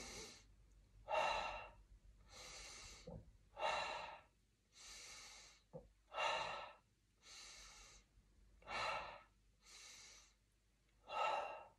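A man breathing audibly in and out in a slow, steady rhythm: about ten breaths, one every second or so, a stronger breath alternating with a softer one. Paced yoga breathing, inhaling as the head draws back and exhaling as it pushes forward.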